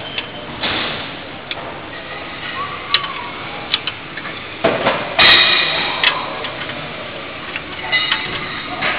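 Small metal hand tool clinking and scraping against the rusty spring-loaded bolts of a car's exhaust flange, in scattered sharp clicks, with a longer, louder scrape about five seconds in.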